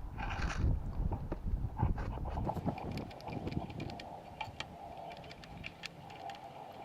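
Irregular clicks and light knocks of handling and hand-tool work, with a low rumble in the first two seconds and a steady hum from a little over halfway in.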